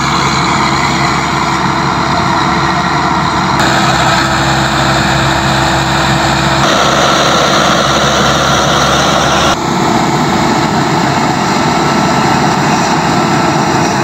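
Fiat 640 tractor's diesel engine running steadily under load, driving a rice thresher machine whose drum and blower whir as sheaves are fed in and straw is thrown out of the chute. The tone changes abruptly three times.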